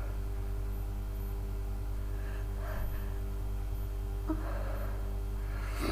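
A woman's breathing as a sneeze builds: faint puffs of breath, a longer gasping intake about four seconds in, then a short sharp burst near the end, over a steady low electrical hum.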